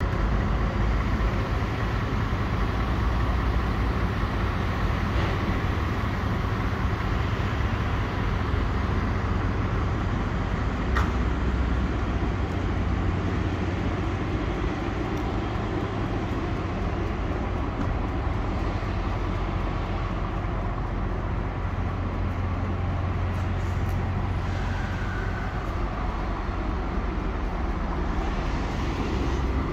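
Scania 770S truck's 16.4-litre V8 diesel idling steadily with a low rumble.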